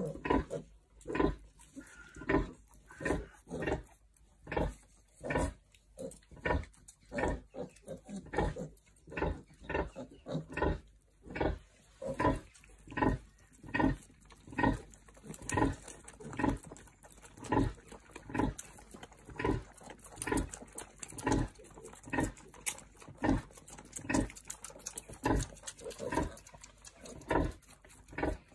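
A sow's rhythmic nursing grunts, short and low, about one a second, while her piglets suckle at her teats.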